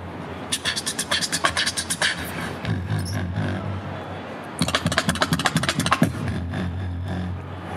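Beatboxing through a microphone and PA: two runs of rapid, sharp percussive clicks and snares, one starting about half a second in and one about halfway through, over a steady low bass.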